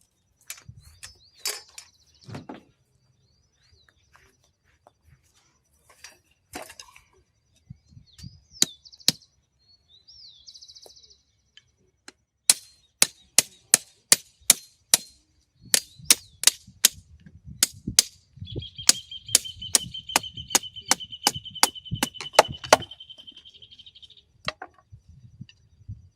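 A quick run of sharp knocks, about three a second, like wood being struck. Then a steady high-pitched whine with a low rumble under it for about five seconds.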